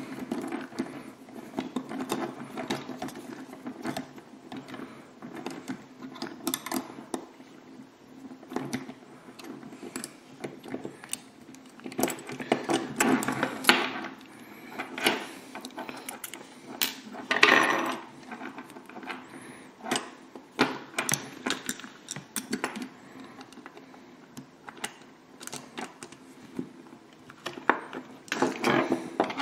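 Small clicks, ticks and scrapes of a screwdriver working a small screw into the plastic rear suspension mount of a model car kit, with the plastic parts knocking and rustling as they are handled, over a faint steady hum.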